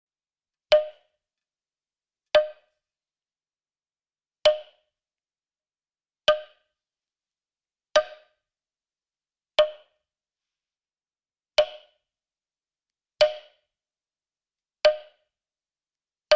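A sharp percussive knock repeated nine times at uneven intervals of about one and a half to two seconds, each with a brief mid-pitched ring that dies away quickly.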